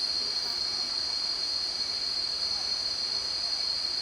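Steady, high-pitched shrill drone of cicadas in the forest, unbroken.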